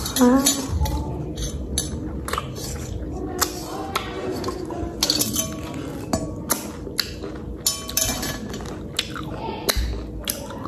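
People eating ripe mangoes fast: an irregular run of sharp wet slurping and smacking clicks, with a brief voice right at the start.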